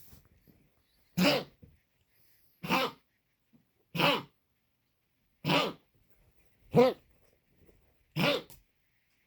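A pet animal coughing over and over, six short harsh coughs about a second and a half apart.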